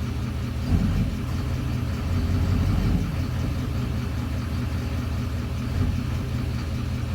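2009 Duramax 6.6-litre V8 turbo-diesel idling, from a truck whose idle runs rough in drive and smooths out in park. A short thump comes about a second in, and the idle runs heavier and louder for a second or so after that before settling again.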